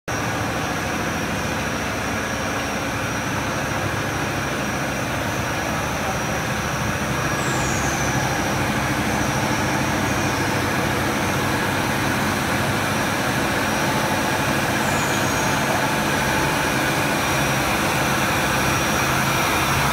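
PVC cable extrusion line running: a steady machine drone with a low hum and a thin, steady high tone. A few faint, short, high falling chirps come about eight and fifteen seconds in.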